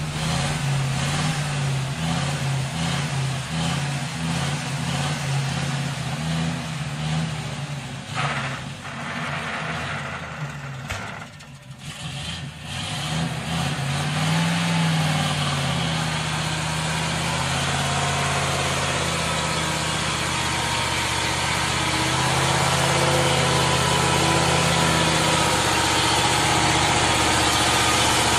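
Ural 6x6 truck's engine running under load as the log-laden truck crawls along. The engine note dips briefly a little before halfway, then rises and holds steady and louder toward the end as the truck comes close.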